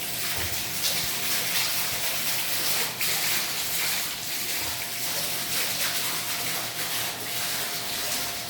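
Steady rush of running water, even and unbroken, with a faint steady hum underneath.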